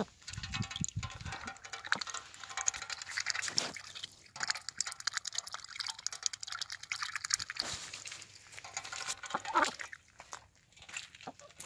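A duck dabbling its bill in a shallow metal pan of water: rapid wet splashing and slurping that dies down about ten seconds in.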